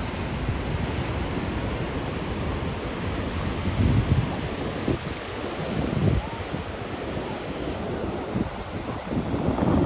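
Ocean surf washing onto the beach, a steady hiss, with wind buffeting the microphone in low rumbling gusts.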